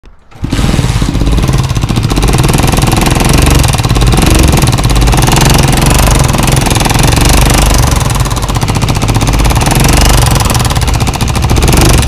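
Honda CG 125 single-cylinder four-stroke engine running with a loud, fast, steady clatter, the very dangerous-sounding engine noise being diagnosed. It starts about half a second in.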